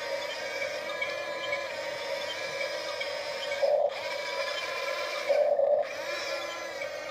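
Huina radio-controlled toy excavator's small electric gear motors whining steadily as the arm and bucket move, rising to two brief louder stretches, about three and a half and five and a half seconds in.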